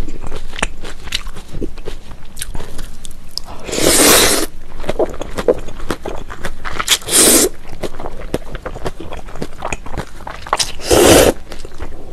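Close-miked slurping of thin somyeon noodles from cold raw-fish soup (mulhoe): three loud slurps about 4, 7 and 11 seconds in, with wet chewing and mouth clicks between.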